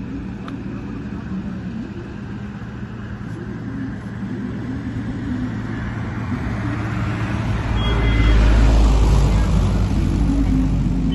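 Road traffic running steadily, with one vehicle passing close and loud about eight seconds in.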